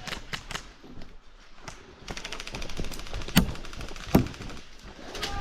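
Scattered sharp taps and thunks of airsoft BBs striking a plastic riot shield, with two louder knocks a little past halfway.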